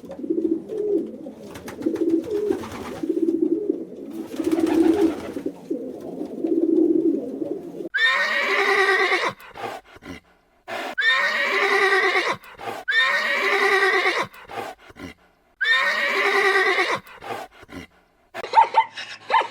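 An animal calling: a run of short, low calls, then four long, wavering calls each lasting about a second and a half.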